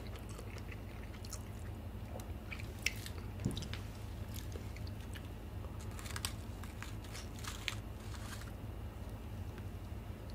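Faint, scattered crackles and crunches of a crispy fried chicken drumstick close to the microphone. The sounds come from chewing and from the seasoned coating crackling as the drumstick is handled in the fingers.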